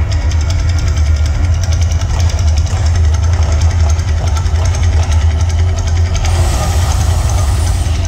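Mirage volcano eruption show: a loud, deep, steady rumble with rapid crackling over it as the gas flames erupt. A hiss joins about six seconds in.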